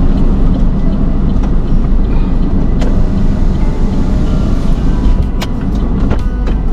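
Motor vehicle engine running at idle: a loud, steady low rumble, with a few sharp clicks.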